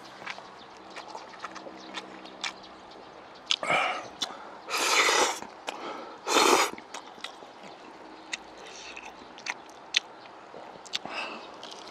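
Chewy cold noodles slurped into the mouth: a few short, loud slurps near the middle, the last two strongest, with soft chewing and wet mouth clicks between.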